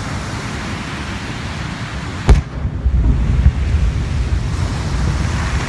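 Aerial firework shell bursting: one sharp, loud bang about two seconds in, followed by a low rumble, over a steady rushing background noise.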